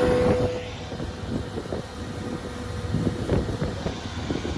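Evinrude outboard motor's steady drone stops about half a second in, leaving irregular low splashing and wind rumble on the microphone.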